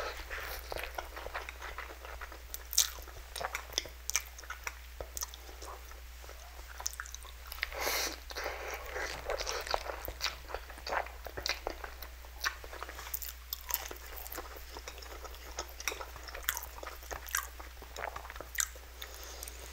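Close-miked eating sounds: a person chewing and slurping instant noodles, with many sharp, irregular wet mouth clicks and a longer slurp about eight seconds in.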